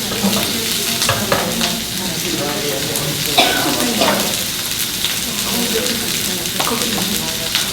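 Vegetables sizzling in a hot pan as they are stir-fried, with a utensil scraping and clicking against the pan several times.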